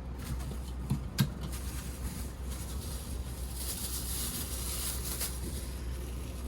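Steady air-conditioner hum, with a sharp click about a second in and a brief hiss around the middle, from parts being handled.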